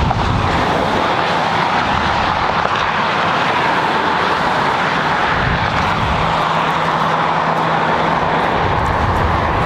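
Steady rushing noise of passing motor traffic, with a low engine hum coming in about five seconds in and fading near the end.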